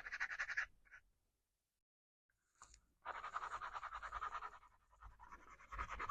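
Hand sanding along the edge of a handmade knife sheath: quick back-and-forth scratchy strokes, rounding off sharp corners. The strokes stop shortly after the start and resume about three seconds in.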